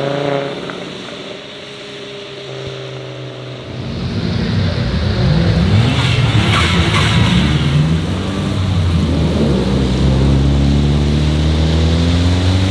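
Cars' engines driving off on a wet road. The first passing engine fades away; then, louder, engines accelerate away with their pitch sweeping up several times, and one engine holds a strong, slowly rising note near the end.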